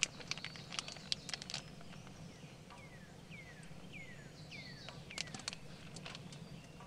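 Scattered sharp crackling pops of bacon and sausage frying in a cast iron pan on a wood stove, clustered early and again about five seconds in. Between the clusters a bird gives four short falling whistled calls about half a second apart.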